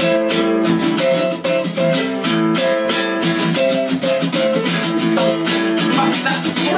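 Two acoustic guitars, a nylon-string classical guitar and a cutaway acoustic guitar, playing an instrumental break together: strummed chords in a steady, quick rhythm.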